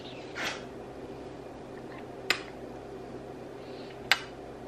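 Two sharp kisses smacked on a baby's cheek, about two seconds apart, over a faint steady room hum.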